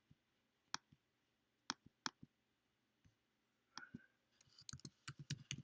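Faint, isolated clicks a second or so apart, then a quick run of keystrokes on a laptop keyboard starting near the end.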